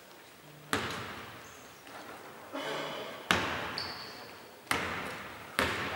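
Basketball bouncing on a hardwood court about five times, irregularly spaced, each bounce echoing through a large, empty arena hall.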